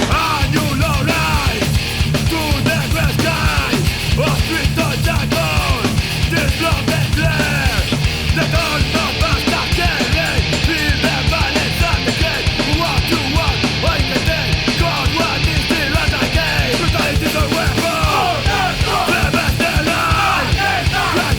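Loud, fast punk rock music with a driving beat, which comes in abruptly at the start.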